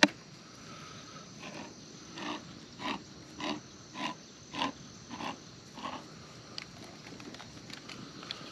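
A cat eating: a regular run of short mouth sounds about every half second, preceded by a sharp click right at the start.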